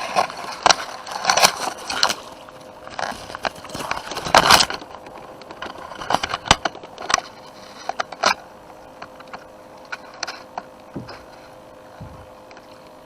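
Gear being handled in a kayak: an irregular run of knocks, rattles and scrapes, busiest in the first few seconds and thinning out after.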